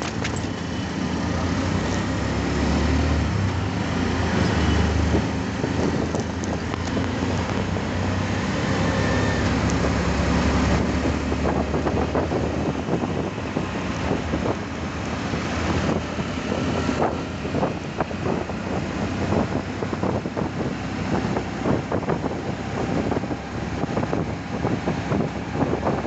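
Road noise heard from inside a moving vehicle in city traffic: a steady engine and tyre drone with a low rumble, heaviest in the first few seconds, as a city bus drives alongside.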